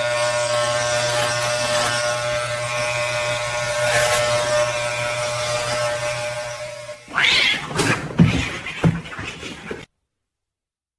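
A cat yowling in one long, steady, unbroken call for about seven seconds, then a short rising cry and a few brief noises.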